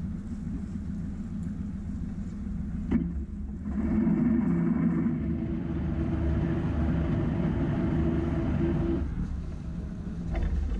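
Sailboat's inboard engine running low, then opened up to higher revs for about five seconds before easing back: a burst of reverse thrust, using prop walk to stop the boat alongside the lock wall. There is a short click just before the revs rise.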